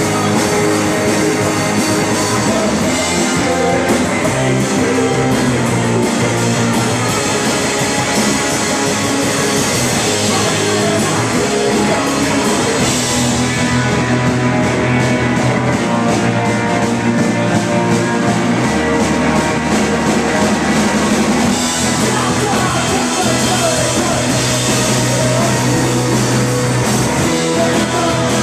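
Live rock band playing loud: electric guitars, electric bass and a drum kit, with a singer's voice at times.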